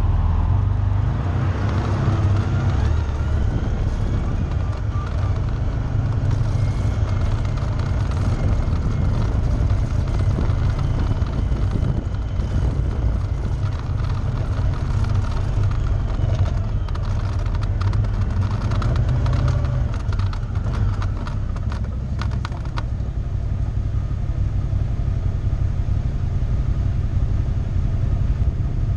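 Engine of a red off-road vehicle running steadily while it is driven, with a constant low rumble. From about halfway through, a few seconds of fast clicking and rattling.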